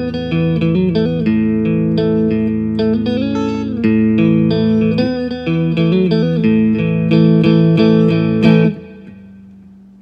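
Fender American Standard electric guitar played through a Blackstar Studio 10 6L6 tube amp with reverb, sounding a melodic line with several string bends. The playing stops about three-quarters of the way through, and the sound fades away.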